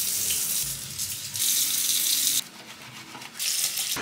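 Water running from a tap into a sink as brushes are rinsed under it. The hiss stops about two and a half seconds in and comes back briefly near the end.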